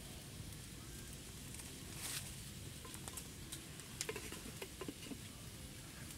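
Faint scattered crackles and light taps from a smouldering wood fire being tended by hand, over a low steady background. The taps come more often about four seconds in.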